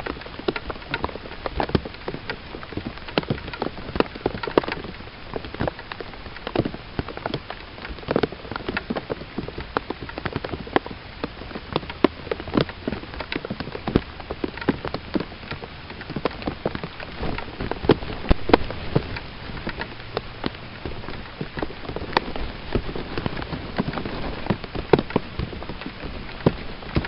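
Steady rain falling, with many sharp, irregular drop hits.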